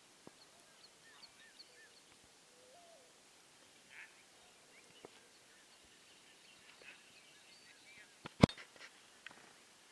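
Faint outdoor ambience of birds chirping: many short, high chirps. About eight seconds in comes one loud sharp click, with a few smaller clicks around it.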